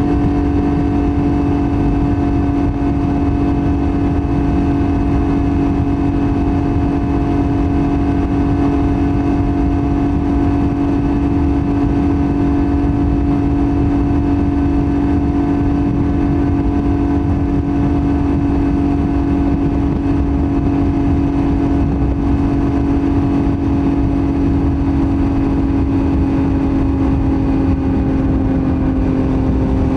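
Yamaha MT-09's CP3 three-cylinder engine through a Roadsitalia titanium full exhaust, held at steady revs with an even note, the pitch easing slightly lower near the end.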